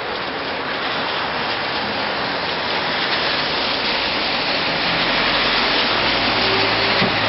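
Rain falling steadily onto a wet street, a dense hiss that slowly grows louder. A low steady hum joins about five seconds in.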